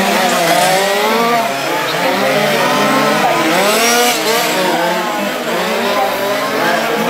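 Several 1:5-scale RC race cars' small two-stroke petrol engines revving together as they lap the track. Their overlapping pitches keep rising and falling with throttle and braking.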